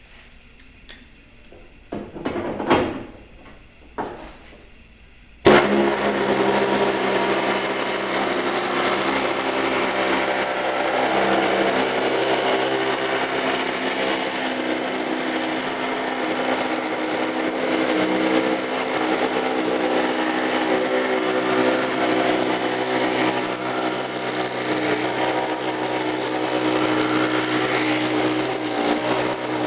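A few handling knocks, then about five seconds in a power tool starts and runs steadily with a high whine, putting a flange (joggle) along the edge of a sheet-metal repair panel for body work.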